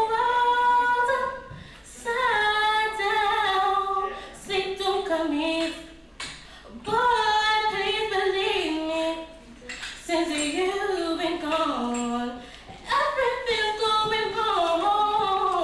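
A young woman singing unaccompanied into a handheld microphone, with held notes and runs, in several phrases with short pauses between.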